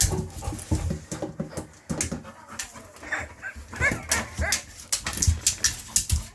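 A dog at a tap making a run of clicks and scrapes with a few short high whines about three to four seconds in, its way of asking for the tap to be turned on for water.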